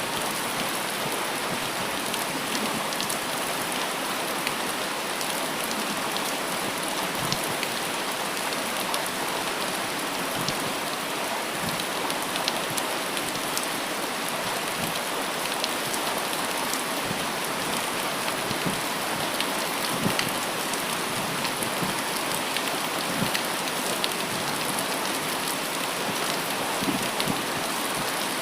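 Steady rain falling, an even hiss with many separate drops ticking close to the microphone.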